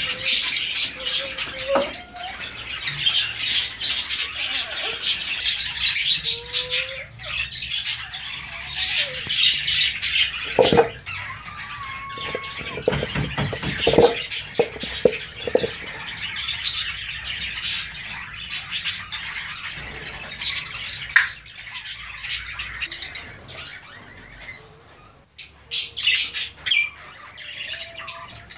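A flock of small parrots, lovebirds and budgerigars, chattering, chirping and squawking continuously, with wing flaps and a few knocks. Near the end there is a brief lull, then a burst of loud calls.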